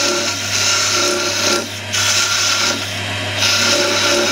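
Wood lathe running with a steady hum while a freshly sharpened chisel cuts the base of a spinning wooden tulip. The cutting comes as a scraping hiss in three passes of about a second each, with short breaks between them.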